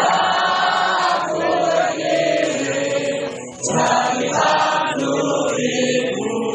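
A large crowd singing together in unison, the voices holding long notes with a brief pause between lines about three and a half seconds in.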